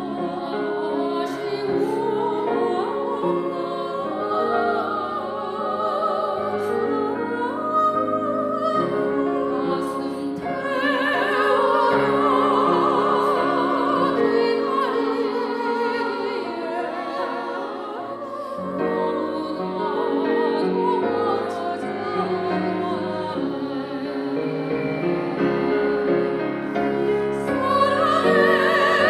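Female vocal trio singing a Korean song in harmony through microphones, with held, wavering notes over steady instrumental accompaniment.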